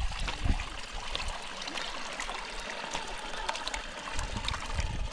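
Running water, a steady trickling hiss with small clicks, and a few low knocks at the start and near the end.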